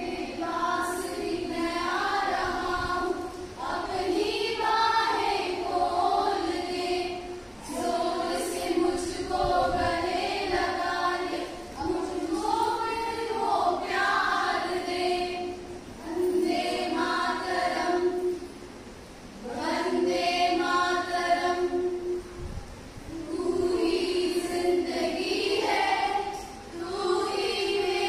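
A group of women singing a patriotic song together, line by line, with short breaks between phrases.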